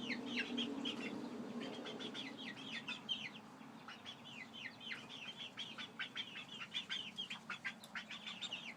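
Young chickens peeping: a flock's continual run of short, high, falling peeps, many overlapping.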